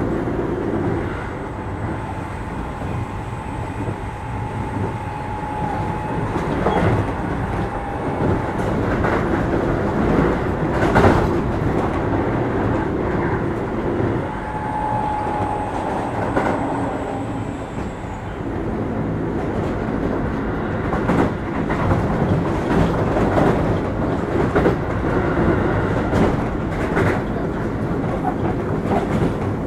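Keio 8000 series electric train (Hitachi SiC-inverter car) running at speed, heard from inside the car: a steady rumble with wheels clicking over rail joints. A faint steady whine comes in twice and fades out.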